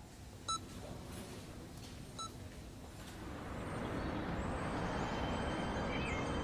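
Hospital patient monitor beeping twice, short high beeps about a second and a half apart. From about three seconds in, steady street traffic noise rises and grows louder.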